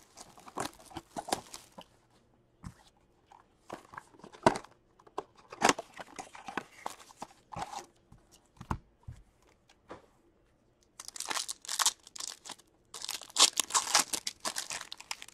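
Hands opening a cardboard blaster box of hockey cards, with scattered crackles, clicks and rustles as the flaps and packs are handled. Near the end come two longer stretches of tearing and crinkling as a foil card pack is ripped open.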